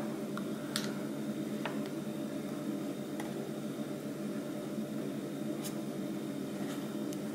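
Steady low hum of room noise, with a few faint clicks and taps as fingers handle the plastic body of a camcorder.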